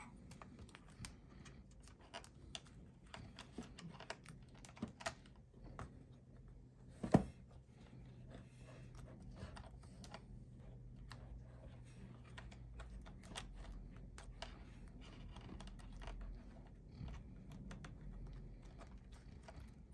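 Small clicks and taps of fingers handling a laptop's M.2 Wi-Fi card and its tiny antenna connectors, with one sharp snap about seven seconds in.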